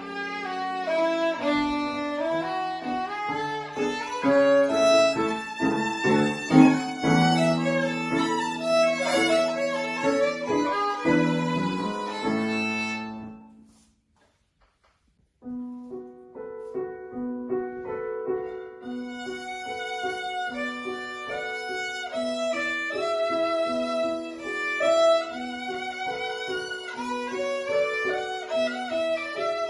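Violin playing with piano accompaniment at a student recital. The music fades out about thirteen seconds in, falls completely silent for about two seconds, and a new passage begins.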